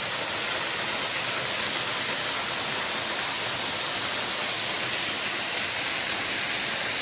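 Small waterfall spilling over a rock ledge and splashing onto the rocks below: a steady, even rush of falling water.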